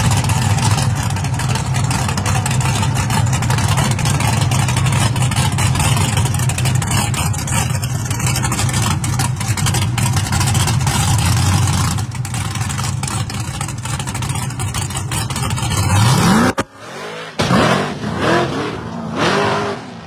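Drag car's engine running loudly with a deep, steady rumble. About sixteen seconds in it revs up in a quick rising pitch, then the sound cuts off abruptly, and a few shorter, uneven bursts of sound follow.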